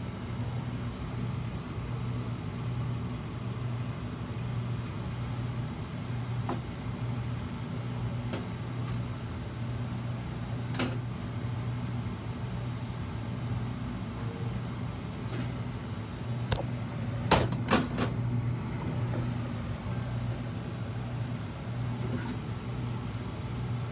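A steady low hum runs under a few sharp clicks of chopsticks against a nonstick frying pan as a thin egg omelette is folded over rice. The loudest clicks come in a quick cluster about two-thirds of the way through.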